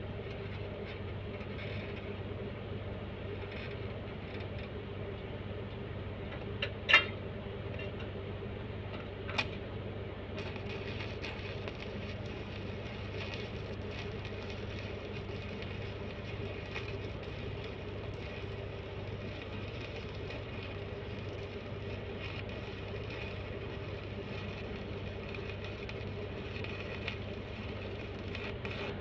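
A steady low mechanical hum, broken by a sharp knock about seven seconds in and a fainter knock a couple of seconds later.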